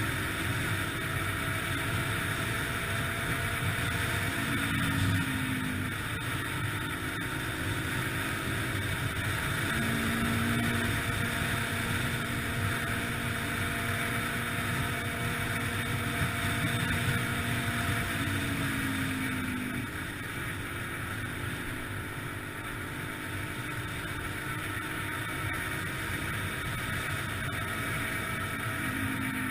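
Yamaha TTR-125LE dirt bike's single-cylinder four-stroke engine running under way, its pitch stepping up and down several times as the rider works the throttle and gears, over a steady rushing noise.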